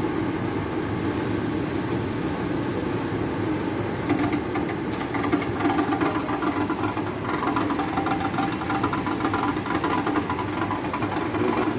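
Ceiling-suspended air conditioner's indoor blower running with a steady hum, joined about four seconds in by a rapid rattling clatter: the abnormal noise being traced to the blower.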